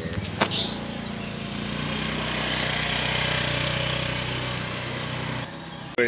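Motorcycle engine running steadily after a sharp click about half a second in, getting a little louder and then easing off, and stopping abruptly near the end.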